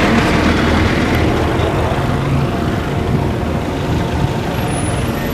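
A heavy vehicle's engine running steadily with a low hum, under general street noise.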